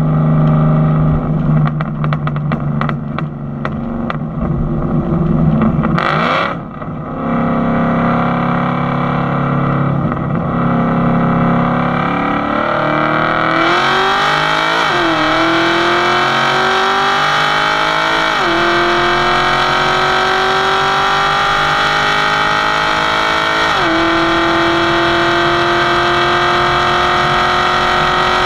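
V8 performance car under hard acceleration in a street roll race. It cruises at a steady drone at first, then from about halfway the engine pitch climbs and drops back sharply three times as it shifts up through the gears, and it keeps pulling in the top gear at the end.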